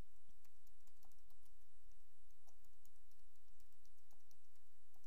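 Typing on a computer keyboard: a run of quick, irregular key clicks, over a faint steady low hum.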